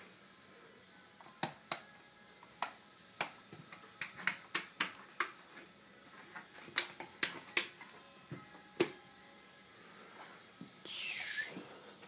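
About a dozen sharp clicks or snaps, irregularly spaced and sometimes in quick pairs, over quiet room tone. Near the end comes a brief high squeak that falls in pitch.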